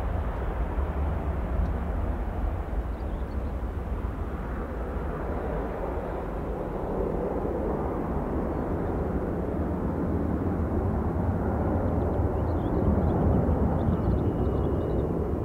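Airbus A320-family airliner's twin jet engines at takeoff power as it climbs out: a steady, deep rumble.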